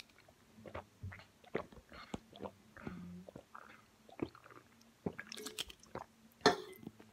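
Someone drinking from an aluminium drink can: a string of short gulps, swallows and wet mouth clicks, with a louder knock about six and a half seconds in.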